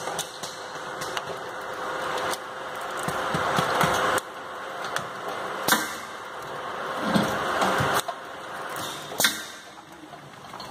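Soda bottle filling machine at work: a rushing hiss builds up twice and each time cuts off suddenly, as the filling valves run and close. Sharp metallic clicks come with the valves and the bottles being seated under the filling heads.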